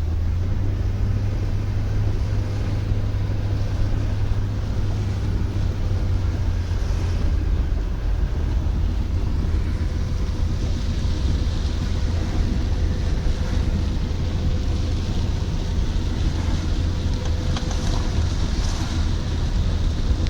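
Steady low rumble of a car's engine and tyres heard from inside the cabin, with a hiss of rain and wet road over it that grows a little brighter about halfway through.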